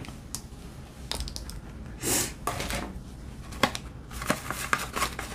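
Light clicks and taps of a plastic diamond-painting tray and its cardboard box being handled on a wooden table, with a short rustle about two seconds in and more frequent clicks in the second half.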